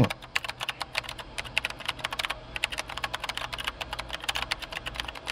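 Rapid, irregular light clicking, several clicks a second, like typing.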